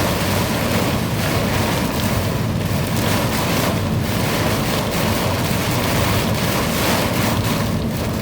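Heavy thunderstorm downpour with strong wind: a loud, steady rush of rain with a deep rumble underneath, with no single crack or strike standing out.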